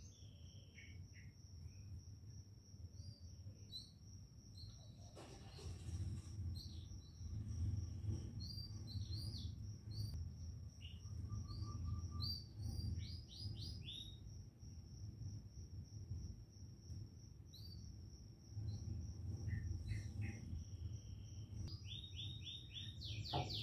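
Small birds chirping in short quick series, over a steady high-pitched whine and a low background rumble.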